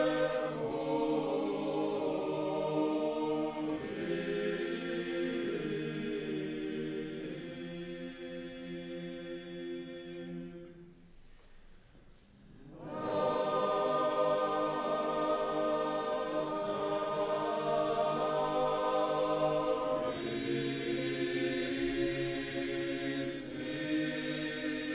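A choir singing slow, sustained chords, voices only. The singing fades away about eleven seconds in and comes back about two seconds later.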